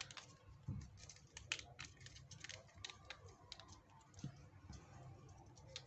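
Faint, irregular light clicks and taps of a plastic feature-phone housing being handled and pressed back together.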